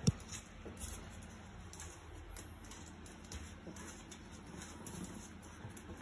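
Chihuahua moving about inside an empty front-loader's perforated stainless steel drum: faint scuffling and light claw ticks on the metal, with one sharp knock right at the start.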